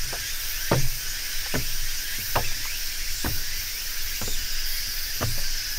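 Footsteps climbing wooden stairs and crossing a wooden deck: six hollow footfalls, a little under one a second, over a steady high hiss.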